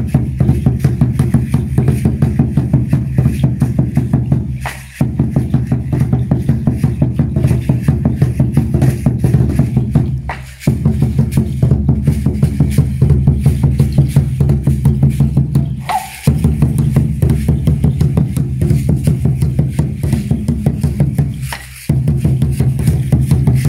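Huehuetl, the upright wooden Mexica drum, beaten in a fast, even rhythm of about four strokes a second, in phrases of roughly five seconds, each closed by a brief break.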